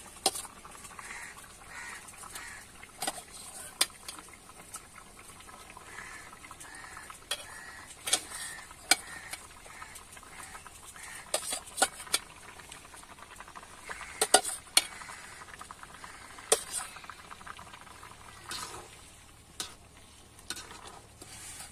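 Steel spoon and ladle clinking and scraping against a steel bowl and a kadai, with the curry gravy simmering. The clinks are irregular and sharp, the loudest of them bunched about two-thirds of the way through.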